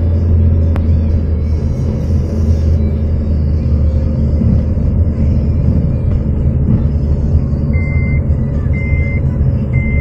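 Car driving, with a steady low engine and road rumble. From about eight seconds in, a high electronic beep sounds about once a second.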